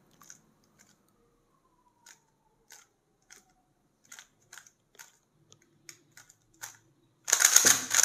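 Layers of a 3x3 speed cube being turned by hand through an algorithm, a string of light, separate plastic clicks, one per move. Near the end there is a much louder burst of sound.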